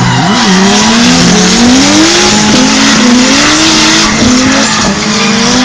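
Drift car's engine revving up and down, its pitch rising and falling again and again, over loud continuous tyre squeal as it slides.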